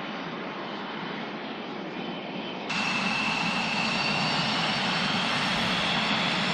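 Jet aircraft engine running with a steady rushing noise. About three seconds in it cuts abruptly to a louder recording with a high whine that rises slightly.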